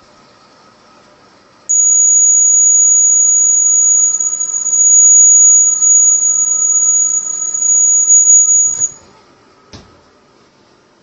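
Electronic buzzer of an Arduino refrigerator door alert sounding one steady, very high-pitched tone for about seven seconds, then cutting off suddenly: the open-door alarm going off.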